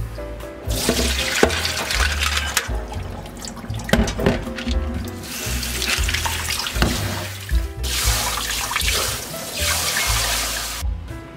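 Kitchen tap running into a stainless steel sink, splashing over frozen clams and shrimp in a mesh strainer and then over chives rinsed by hand, with a few sharp knocks. The water pauses briefly twice and stops near the end.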